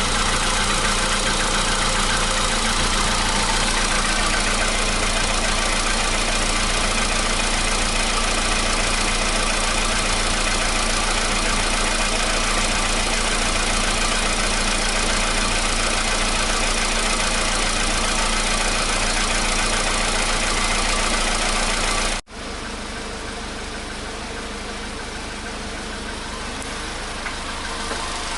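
Volkswagen Polo Sedan's 1.6-litre CFNA four-cylinder petrol engine idling steadily while warming up after a cold start, running evenly without the cold-start knock it used to have. About 22 seconds in the sound cuts off for an instant and comes back quieter.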